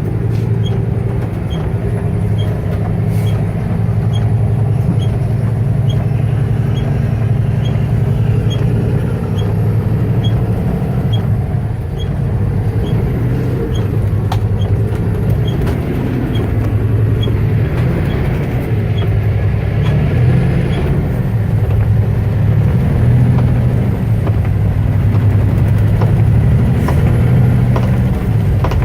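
Truck engine running steadily, heard from inside the cab, with a turn signal ticking about once a second during a turnaround; the ticking stops about two-thirds of the way through.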